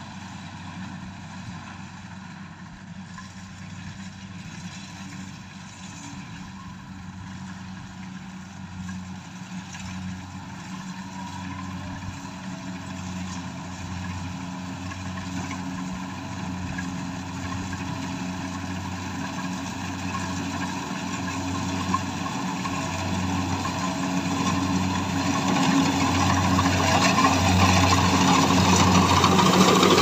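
Kubota rice combine harvester's engine running steadily under harvesting load, growing steadily louder as the machine comes closer.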